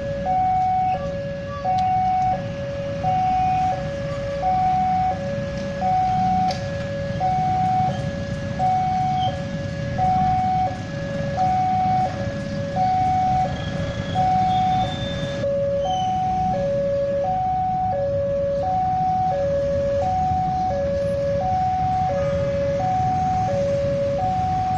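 Railway level-crossing warning alarm sounding: an electronic two-tone chime that alternates steadily between a high and a low tone, signalling that the crossing is closed for a train. Underneath runs the low, steady rumble of motorcycle engines.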